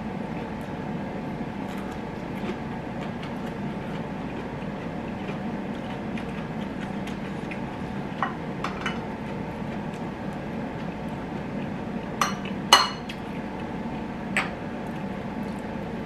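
A metal spoon clinking against a ceramic rice bowl, several separate clinks in the second half, the loudest about three-quarters of the way through, over a steady low room hum.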